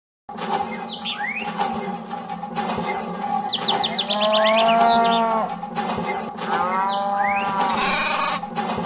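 Livestock calling: two long drawn-out calls, the first about four seconds in and the second about seven seconds in, each starting with a rising sweep, over a steady background drone.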